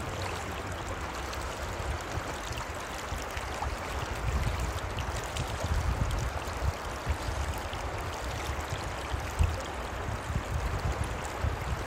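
Shallow, clear river babbling steadily over a stony bed, heard close up, with an uneven low rumble underneath.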